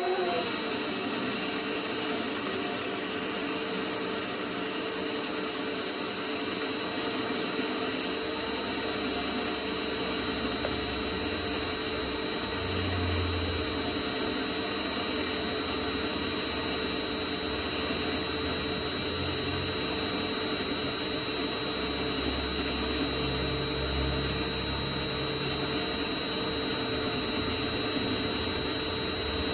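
Mini metal lathe running steadily, a motor hum with a constant high whine; its pitch drops right at the start, then holds even.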